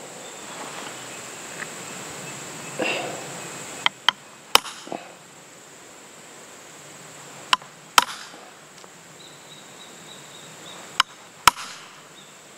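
A hammer striking a steel wad cutter (hollow punch) down through leather onto a lead plate: three sharp blows a few seconds apart, each preceded by a lighter tap. The blows are not hard enough to cut the wad cleanly out in one go.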